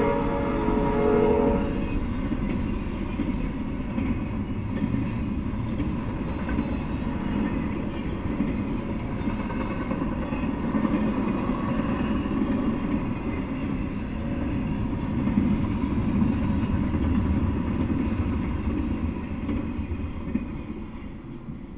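Double-stack intermodal freight train passing: the steady rolling rumble of its wheels on the rails, dying away near the end as the last car clears.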